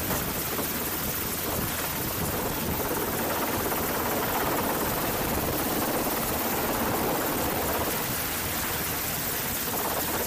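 Navy Seahawk helicopter hovering low overhead during a hoist, its rotor noise a steady, even rush.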